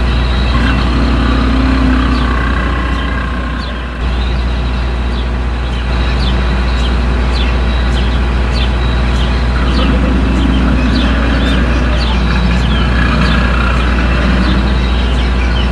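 Tyrannosaurus rex roar sound effect: long, drawn-out growling roars that swell and fade over a deep continuous rumble.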